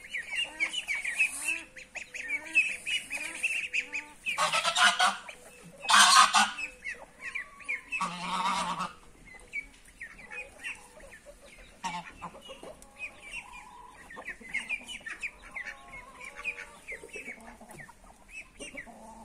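Domestic goose honking loudly, three harsh calls about five, six and eight seconds in, among clucking chickens and roosters. Rapid high chirping goes on throughout.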